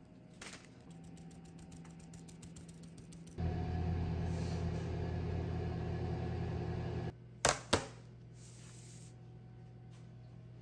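An oven's fan motor running with a steady hum, which cuts off suddenly and is followed by two sharp clicks.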